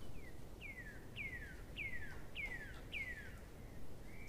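A bird calling: a series of six clear whistled notes, each sliding down in pitch, about one every 0.6 s.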